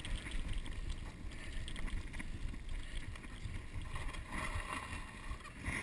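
Wind rushing over a handlebar-mounted action camera's microphone, with the steady rumble of bicycle tyres rolling over a dirt track.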